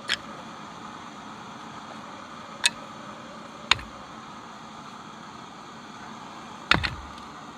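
Wood fire crackling in a tent stove: sharp pops now and then, the last a quick double near the end, over a steady rushing hiss.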